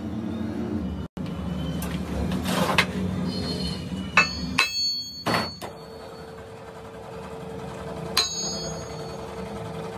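Hammer blows on a crankshaft held in a lathe chuck: sharp metallic strikes that ring, three close together around the middle and one near the end, over a steady low machine hum.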